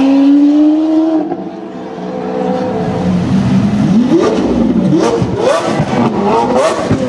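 Lamborghini Aventador's V12 accelerating hard, its pitch climbing for about a second before it falls away. A few seconds later a supercar engine is revved in a string of quick rising blips, with sharp cracks between them.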